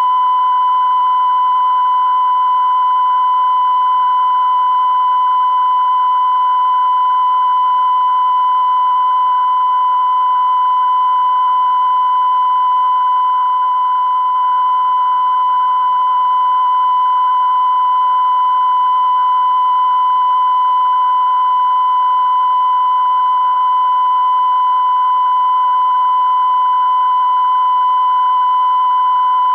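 Soviet television test tone: a single unbroken high-pitched beep held at an even level, broadcast under the UEIT test card after close-down to show the station is off programme but still transmitting. A faint hiss lies underneath it.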